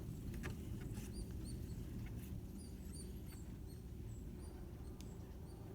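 Small birds giving short, high chirps at irregular intervals over a steady low rumble.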